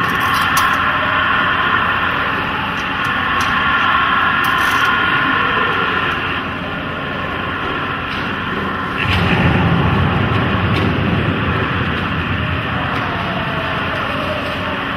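Dense, steady noise-and-rumble texture of the dance piece's electronic sound score, with a deep low rumble coming in suddenly about nine seconds in and fading over the next few seconds.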